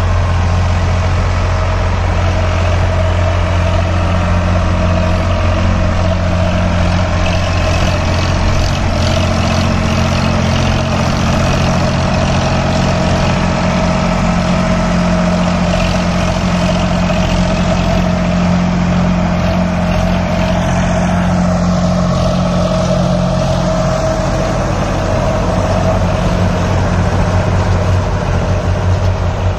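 ACE 550 tractor's diesel engine running steadily under load while pulling a Sonalika rotavator through the soil, its note holding constant throughout.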